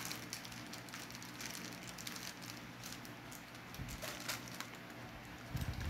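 Aluminium foil crinkling and crackling irregularly as it is folded and pressed by hand into a packet, with a few low thumps near the end.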